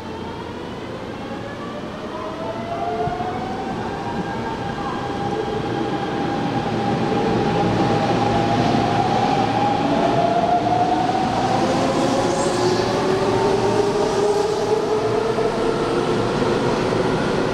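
An electric commuter train approaching and growing louder over the first several seconds, then running close by. Several drifting whining tones from its traction motors sound over the rumble of the wheels on the rails.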